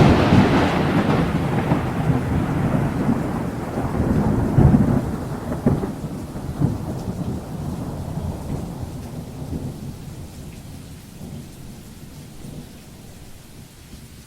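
Thunder: a loud clap breaks at the very start and rolls on as a rumble that swells again about five seconds in, then slowly dies away over some ten seconds. Rain hiss underneath.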